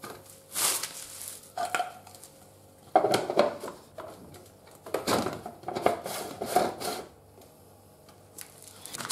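Clattering and scraping from a plastic tool tube on a motorcycle as its contents are handled and its end cap is fitted back on. It comes in several short bouts, the loudest about three seconds in.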